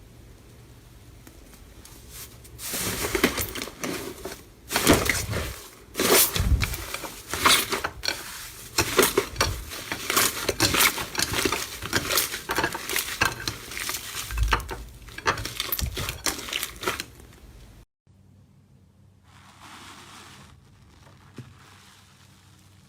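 Slime being squeezed and pressed by hand: a dense run of crackles and clicks that stops abruptly near the end.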